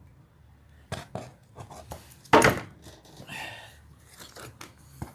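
Metal engine parts being handled and set down: a few light clicks, then one loud knock about two and a half seconds in, followed by a brief scrape.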